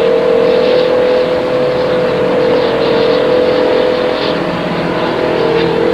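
A machine running steadily: a constant hum over a loud rushing noise, with no change in pitch.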